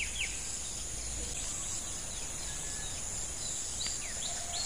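Steady high-pitched insect chorus, with a few faint short chirps over it.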